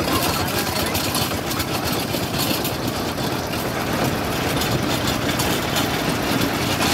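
Single-cylinder diesel engine of a two-wheel hand tractor running steadily while pulling a load along a rough dirt track.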